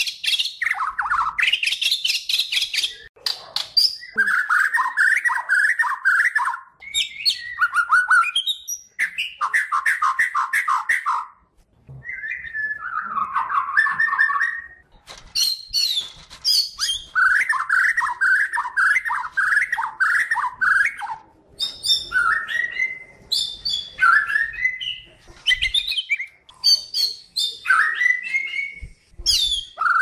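White-crowned shama (Kalimantan murai batu) singing a long, varied song. It alternates quick runs of repeated chattering notes with higher whistled phrases, with short breaks between phrases.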